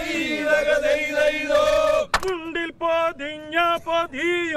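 A group of men singing a vanchipattu, the Kerala boat song, in call-and-response chorus, with several voices together at first. A single sharp hand clap comes about two seconds in.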